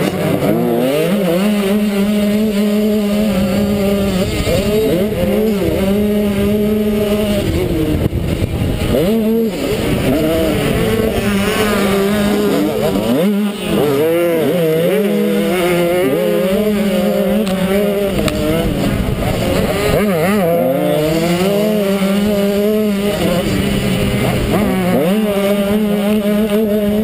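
Motocross bike engine revving hard and rising and falling in pitch over and over as the throttle is opened and shut through the track, heard close from a camera mounted on the bike. The revs drop sharply a few times, the deepest about halfway through.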